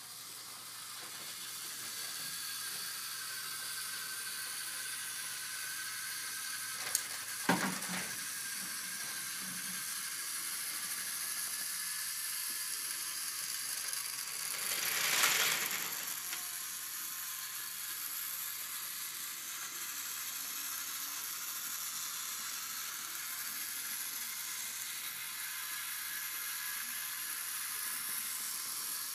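Small battery-powered toy train running along plastic track, its motor and gears whirring with a steady ratcheting rattle. A few sharp clicks come about seven seconds in, and it swells louder for a moment about halfway through.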